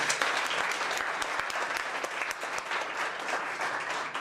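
Audience applauding: a room of people clapping steadily.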